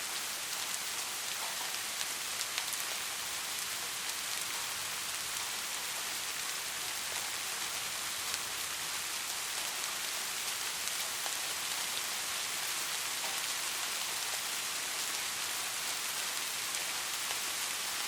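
Steady rain falling, a continuous hiss with many fine ticks of individual drops; no thunder is heard.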